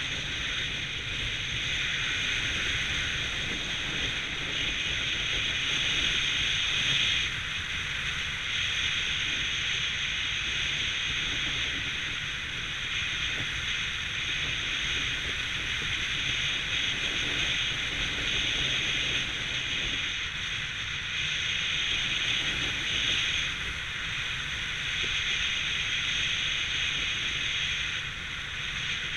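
Steady wind rushing over the microphone as a skydiver descends under a gliding parachute canopy, a continuous hiss with a low rumble that swells slightly now and then.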